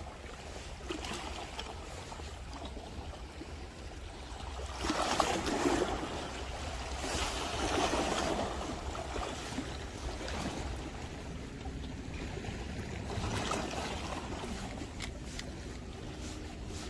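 Small sea waves washing against the rocks of a seawall, swelling louder a few times, the loudest about five and eight seconds in, over a steady low wind rumble on the microphone.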